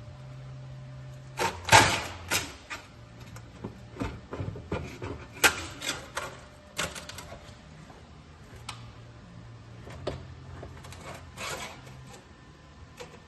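Sheet steel being worked in a homemade bending machine: irregular metal clanks and knocks, loudest about two seconds in and again near the middle, over a low hum that comes and goes.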